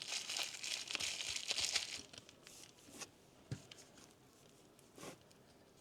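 Plastic packaging of a LiPo battery pack crinkling and tearing as it is unwrapped, busiest over the first two seconds, then a few light clicks of handling.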